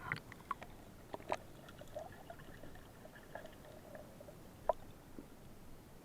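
Faint underwater ambience: scattered clicks and knocks, the sharpest about a second in and again near the five-second mark, with soft bubbling gurgles between them.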